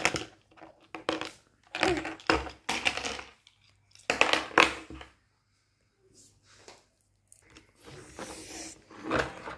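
Hard plastic toy-tool pieces being handled, knocked together and set down on a table: several clusters of clacks and knocks, with a short lull in the middle.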